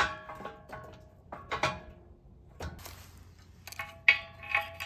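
Steel quick-attach pallet fork frame and its locking pin knocking against a John Deere 410 loader's mounting bracket: several sharp metal clanks, each ringing briefly.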